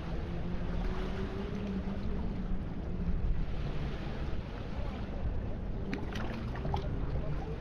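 Wind rumbling on the microphone over small waves lapping among shoreline rocks, with the faint hum of a distant boat engine in the first few seconds.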